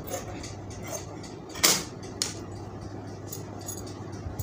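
Scissors snipping through cotton cloth, with a few light clicks and one louder sharp clack about one and a half seconds in, then a smaller click just after, over a low steady hum.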